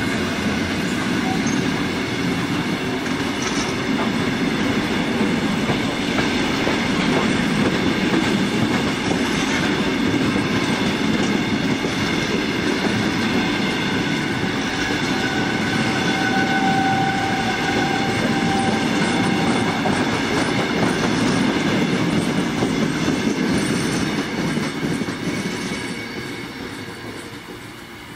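Heritage passenger carriages rolling past on the track, their wheels clattering over the rails, with a brief thin squeal around the middle. The sound fades over the last few seconds as the end of the train moves away.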